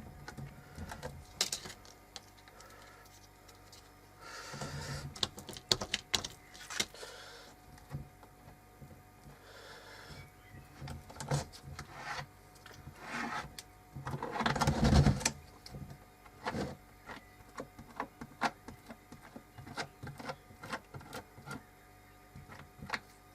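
Hands at close work on a small wooden model roof: scattered light clicks and taps with a few short rustles, while two-part epoxy is pushed into the gaps along the roof ridge. The loudest is a longer rustle with a low thump about fifteen seconds in.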